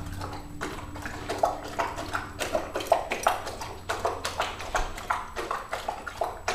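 Weimaraner eating water-soaked dry dog food from a bowl, gulping fast, with quick irregular clicks and taps of mouth and food against the bowl, several a second.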